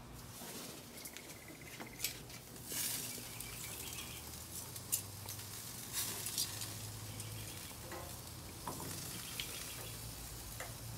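Shrimp skewers and sausages sizzling on a gas grill, with a few sharp clicks of metal tongs.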